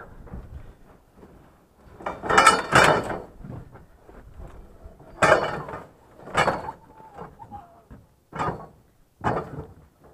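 Chain-link fencing and its metal pipe rails clanking and rattling against other scrap metal as they are loaded onto a trailer. A loud ringing clatter about two seconds in, then several separate clanks.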